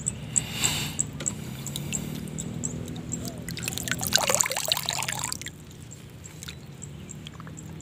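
Water sloshing and trickling around a person wading chest-deep in a flooded swamp, with a louder stretch of splashing about four seconds in.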